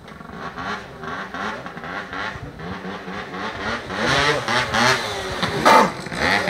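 Tuned two-stroke MBK Booster scooter engine with a Polini kit, revving up and down as it approaches and growing louder. About six seconds in comes a sharp high rev as the scooter is pulled up onto its back wheel.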